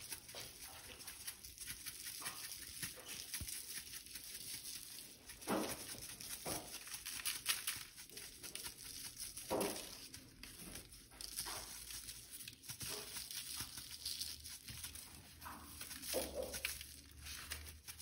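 Spice shaker shaken over raw chicken on parchment paper: a light, scratchy rattle and patter of seasoning granules. Three short falling squeaks stand out, about five, nine and sixteen seconds in.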